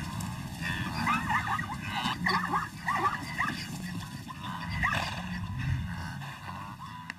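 Animal calls: many short, high yips and whines that rise and fall in pitch and overlap, thickest in the first few seconds, over a low rumble.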